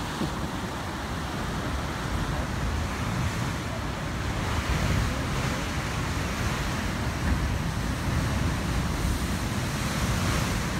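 Rough ocean surf breaking against and washing over the rocky shore, a steady rush of waves, with wind buffeting the microphone.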